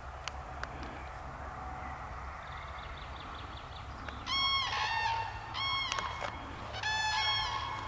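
A pair of common cranes calling together: three loud bursts of bugling calls starting about four seconds in, each burst made of two overlapping notes of slightly different pitch.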